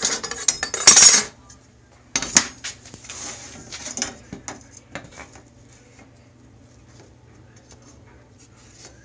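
Metal tools and wood being handled on a table saw sled while the fresh cut is checked for square: clinks and scrapes, loudest in the first second or so, then a run of lighter clicks and knocks that dies away a little past the middle.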